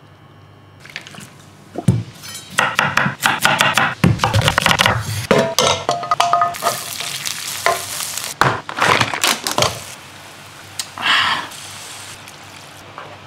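Cooking sounds at a nonstick pan: food sizzling and frying with crackles, knocks and scrapes of stirring. Dense and loud through the middle, then a softer, steady sizzle near the end.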